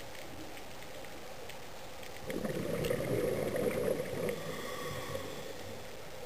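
Underwater recording: a steady faint hiss, then a little over two seconds in, a rush of bubbling water that lasts about two seconds and fades away.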